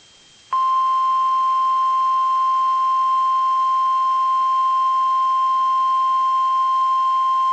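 NOAA Weather Radio 1050 Hz warning alarm tone: a single loud, unwavering tone that starts about half a second in after a brief near-quiet gap and holds steady. It is the alert tone that opens the required weekly test broadcast.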